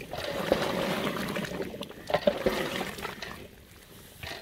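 Whisked yogurt poured from a clay bowl into a large pot of hot, browned goat meat: a splattering pour that fades after about two and a half seconds, with a few sharp knocks against the pot.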